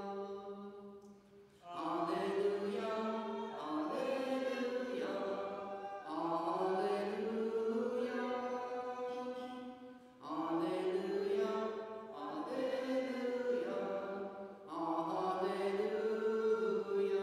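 A man's voice singing unaccompanied liturgical chant in slow phrases of about four seconds each, each phrase rising in pitch as it begins.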